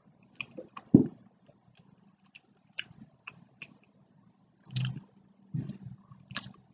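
A person chewing a mouthful of pizza close to the microphone: scattered soft mouth clicks, with a few louder short chewing sounds about a second in and again toward the end.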